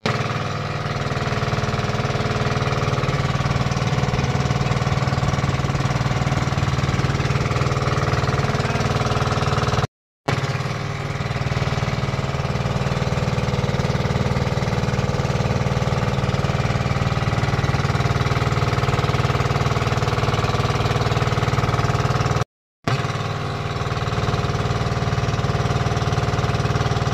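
Engine of a small motorized outrigger boat running steadily under way, a loud even drone with a strong low hum. It breaks off into silence twice, for a fraction of a second each time, and resumes unchanged.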